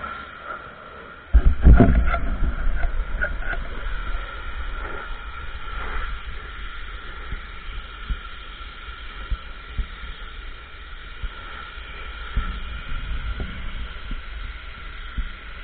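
Ryobi RY14122 electric pressure washer running with a steady high whine. About a second in, a loud rumbling rush of water spray starts suddenly and carries on, with scattered knocks.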